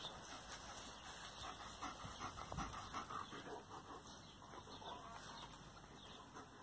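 German shepherd panting softly, with faint gnawing as it mouths its ring toy.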